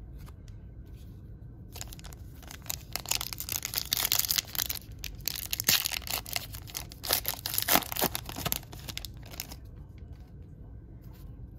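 Foil wrapper of an Upper Deck trading card pack being torn open by hand, crinkling and crackling for about seven seconds. It starts about two seconds in and stops near the end.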